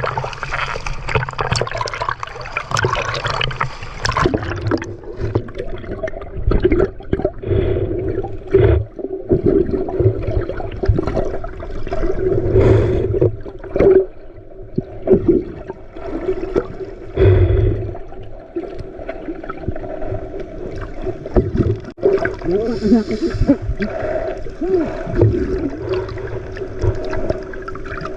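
Water splashing and gurgling around a small boat at sea, in irregular surges, over a steady motor hum.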